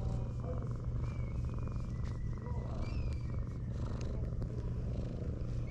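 Orange tabby cat purring steadily while being stroked under the chin. The purr swells and eases in repeated breath cycles.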